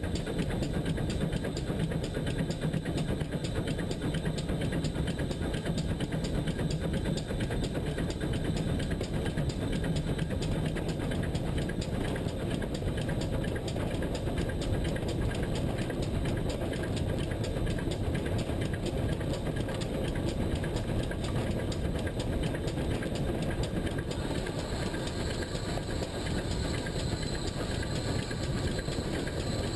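Pannier tank steam locomotive running along the line, heard from the front of the engine: a steady rumble of the locomotive and its wheels on the rails.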